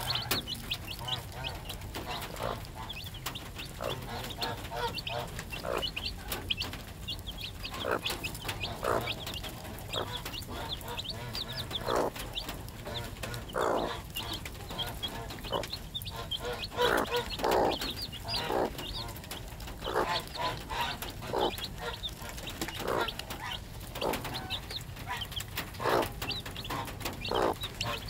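Three-day-old chicks peeping constantly in short, high notes, while the mother hen gives low clucks at irregular intervals, about one every second or two.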